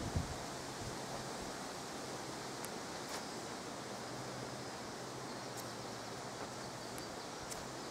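Quiet, steady outdoor background noise: an even hiss with a faint low hum and a few faint ticks.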